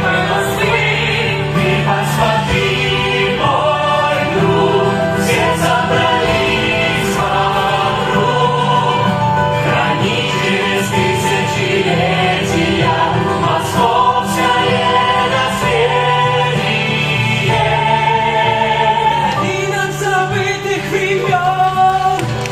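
A song from a live stage musical: cast voices singing together over musical accompaniment, carrying on without a break.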